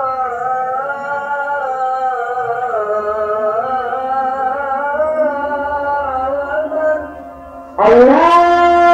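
A voice chanting the Islamic call to prayer (adhan), drawing one phrase out into a long, winding, ornamented melody. It tails off about seven seconds in, and after a short pause the next phrase begins loudly near the end.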